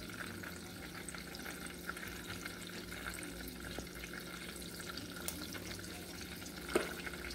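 Butter and a little oil sizzling and bubbling in a saucepan as sticks of butter melt, with small crackles throughout.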